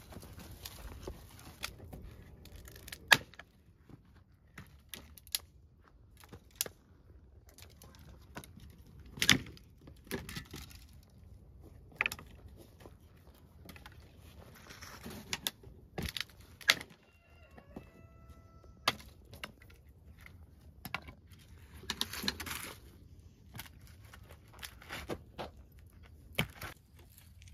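Dry wooden branches snapping as they are broken underfoot and by hand: a series of sharp cracks a few seconds apart, with scuffing and rustling between them.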